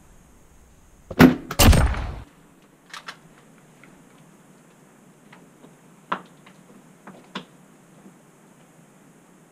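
A loud scraping knock of gear or clothing rubbing against a body-worn camera's microphone, lasting about a second and starting about a second in. After it come a few faint, separate clicks and knocks in a quiet room.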